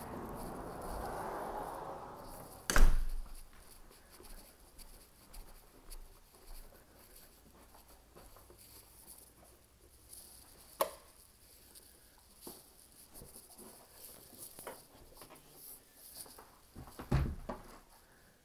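Scattered knocks and clicks as someone walks through empty carpeted rooms and handles doors. One loud, sharp knock comes about three seconds in, a smaller click near eleven seconds and a few knocks near the end. A rush of noise fades out in the first two seconds.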